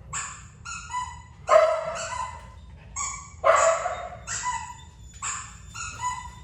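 A dog barking in a quick series of about eight barks.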